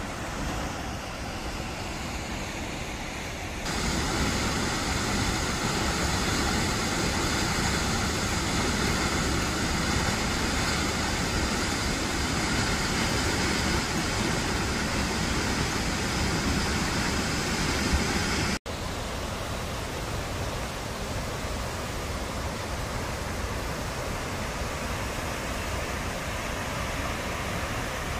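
Steady rushing roar of a waterfall, Rainbow Falls. It grows louder about four seconds in, breaks off for an instant after the middle, then carries on a little softer.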